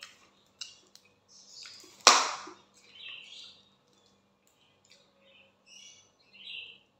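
Plastic water bottle being picked up and handled, with one loud sharp crack about two seconds in, followed by a few faint high chirps and crinkles.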